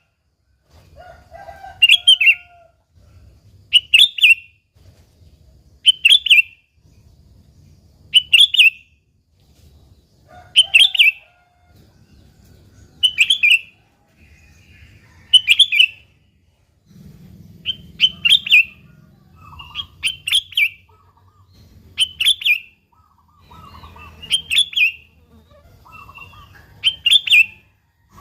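Sooty-headed bulbul (kutilang) calling: a short, bright, chattering phrase, repeated about every two seconds.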